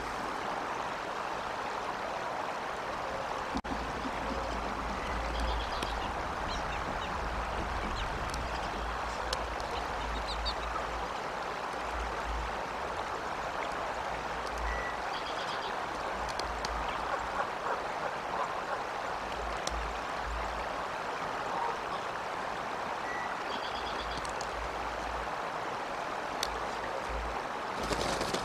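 Steady rushing outdoor noise, like running water, with a very low rumble coming and going and faint short chirps now and then.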